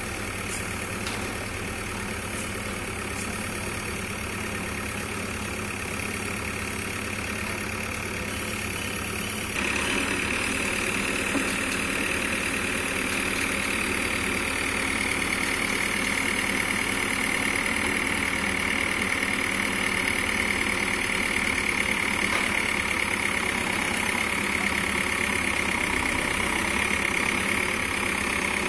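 Diesel engine of a Manitou TLB 844S backhoe loader running steadily while its backhoe arm digs. The sound turns suddenly louder about ten seconds in and stays there.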